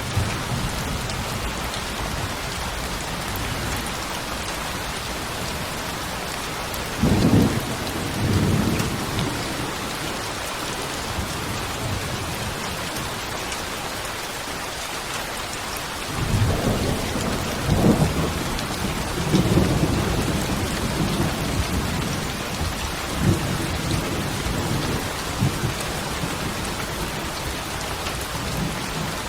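Steady rain falling, with low thunder rumbling about seven seconds in and again in a longer run of rolling rumbles from about sixteen to twenty-four seconds.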